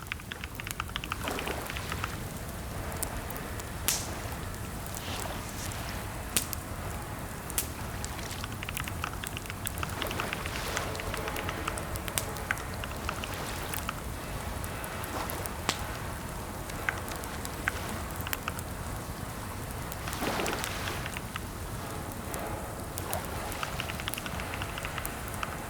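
Steady rain-like hiss with irregular sharp clicks and crackles scattered through it.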